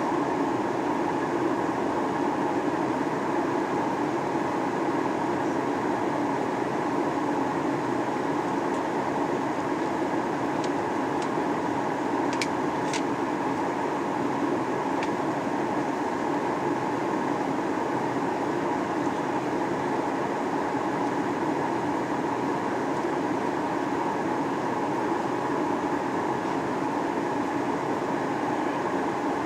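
Steady in-flight cabin noise of a Boeing 737-800: airflow over the fuselage and the hum of its CFM56-7B turbofan engines. A few faint clicks come through about halfway through.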